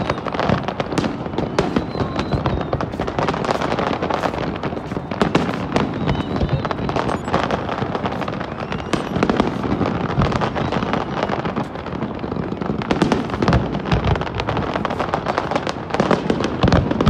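Fireworks display: many bangs and crackling bursts in quick succession, with no pause.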